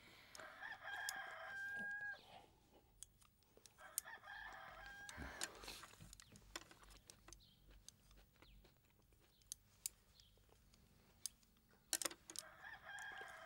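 A rooster crowing faintly three times: near the start, about four seconds in, and near the end. Each crow is a short run of stacked notes ending on a held tone.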